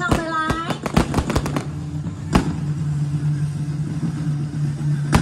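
Aerial fireworks going off: a rapid string of sharp bangs and crackles in the first second and a half, then single bangs about two seconds in and near the end, over a steady low hum.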